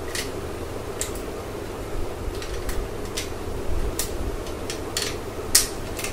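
Small plastic cosmetics, lipstick tubes among them, clicking and knocking lightly as they are handled in a cosmetics pouch: about ten scattered clicks, the sharpest near the end, over a steady low hum.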